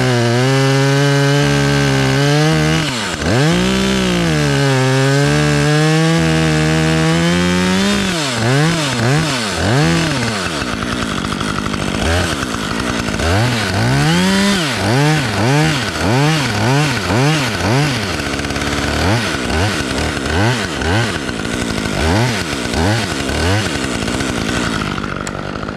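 Top-handle chainsaw cutting into a tree trunk. It runs steadily under load for the first several seconds, then revs up and down over and over as the cut goes on.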